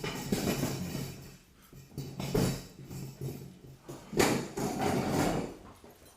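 Knocks and clatter of objects being handled and set down, with a low steady hum through the first half.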